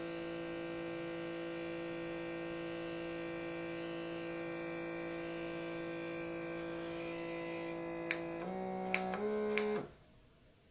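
Electric suction lip plumper's pump motor running with a steady hum while the device is held sealed to the lips. About eight seconds in, a few clicks come and its pitch steps up twice, then it cuts off suddenly near the end.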